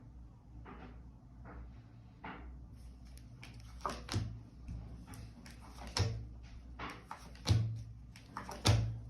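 Tarot cards being drawn and laid down on a table: a series of short taps and light slaps, the louder ones in the second half.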